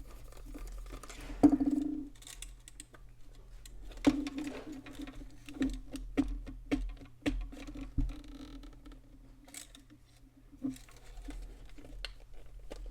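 Irregular clicks, taps and light scrapes of a small plastic flip clock being handled and worked at as it is taken apart, with a low intermittent hum underneath.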